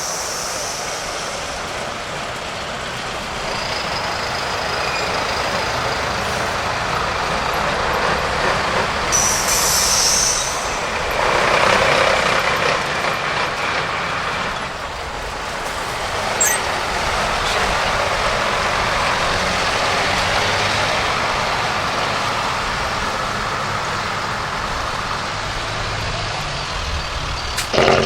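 Decorated heavy truck (dekotora) engine running as it drives in slowly, with a short hiss of air brakes about nine seconds in.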